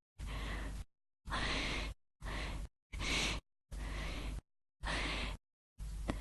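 A woman's breathing: a string of about seven short sighs and gasps, each well under a second long, cut apart by dead silence.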